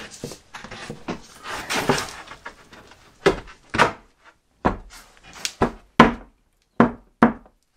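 A timber fence-paling board scraping against a wooden bench frame as it is slid into place, then about eight sharp wooden knocks as it is pushed and tapped into position.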